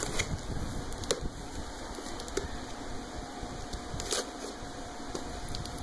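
A knife slitting the packing tape on a cardboard carton while hands handle the box: a few scattered scrapes and taps, the sharpest about a second in and about four seconds in, over a steady background hum.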